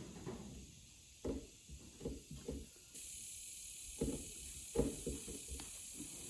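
Soft, irregular handling bumps and rubs as fingers press and shape epoxy putty onto the edge of a fiberglass trunk lid, over a faint steady hiss.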